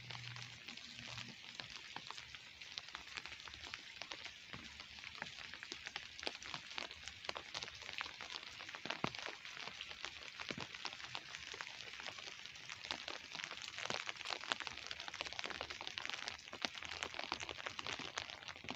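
Rain falling: a steady hiss with many small, crisp raindrop ticks close by.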